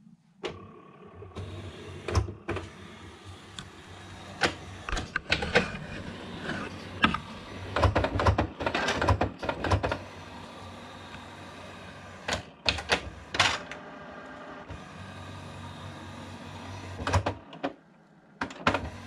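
Canon Pixma E3370 inkjet printer's mechanism running: a steady motor hum with irregular clicks and clunks as the print-head carriage and feed parts move. It stops about a second and a half before the end.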